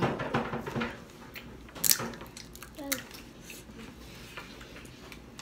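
Snow crab leg being cracked and picked apart by hand, with one sharp shell crack about two seconds in, a smaller click about a second later, and light clicking and eating sounds around them.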